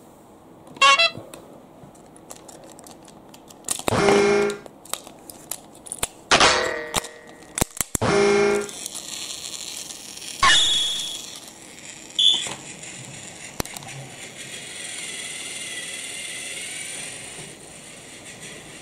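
Three short buzzing electronic tones about two seconds apart, with sharp clicks between them, followed by two brief high beeps.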